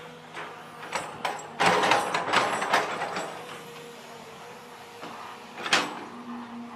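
Long-reach excavator running with a steady hum. About a second and a half in comes a burst of clattering and scraping, and a single sharp knock follows near the end.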